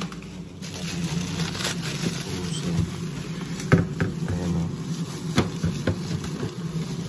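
Hands rummaging through frozen plastic-wrapped packages in a freezer: plastic crinkling, with several sharp knocks of frozen items, the loudest a little past halfway, over a steady low hum.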